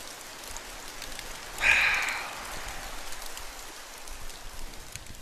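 Steady rushing hiss of running water, with a brief louder burst of noise about one and a half seconds in.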